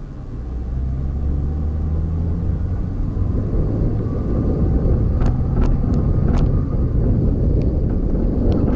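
Car driving along a road: a steady low engine and road rumble that grows louder over the first second or so, with a few sharp clicks from about five seconds in.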